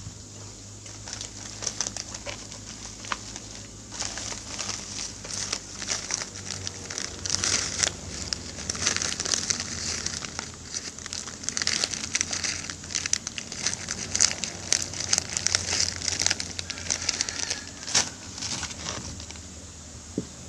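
Hands kneading and squeezing a soft carp-bait dough of bread, egg and milk powder, with irregular crinkling, crackling and sharp clicks; the mix is still too soft and more is being worked in.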